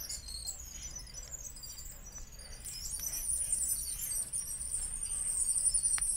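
Birds and insects chirping, high-pitched, with a steadier high trill setting in about three seconds in. A faint click comes near the end.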